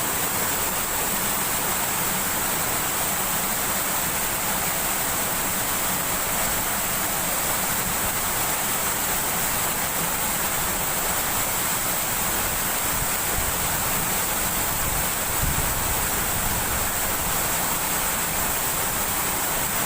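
Steady rush of fast-flowing river water over rocks, an even hiss that holds without a break.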